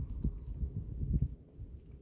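Wind buffeting the microphone: irregular low rumbling thumps that ease off near the end.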